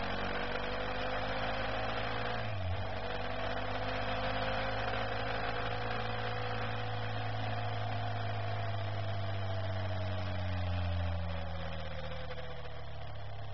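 Motorcycle engine running steadily at cruising speed with wind rushing past, its drone slowly rising and then easing off, with a brief break about two and a half seconds in.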